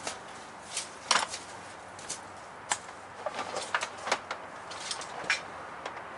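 Irregular sharp clicks and light knocks, about a dozen spread over several seconds, over a faint steady background hiss: tools and a power cord being handled. The cutting wheel is not running.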